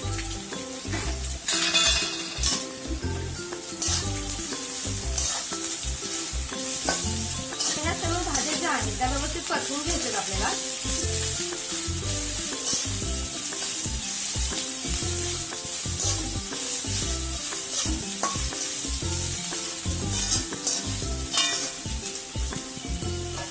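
Shredded cabbage, carrot and capsicum sizzling in hot oil in a metal kadhai while a steel spatula stirs and scrapes them, with scattered clicks of the spatula against the pan.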